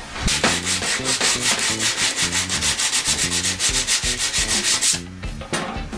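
Sandpaper rubbed rapidly back and forth by hand over a sheet-metal gas tank, about five scraping strokes a second. The strokes stop briefly about five seconds in, then start again.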